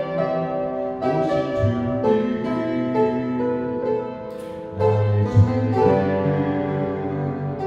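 Upright piano playing a slow hymn accompaniment alone, sustained chords changing about once a second, with a louder low chord struck about five seconds in.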